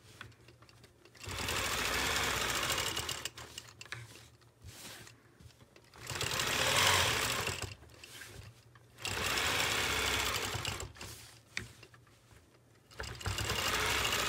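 Longarm quilting machine stitching in short runs of about two seconds, four times, stopping briefly between runs as it is guided along a ruler to quilt curved arcs.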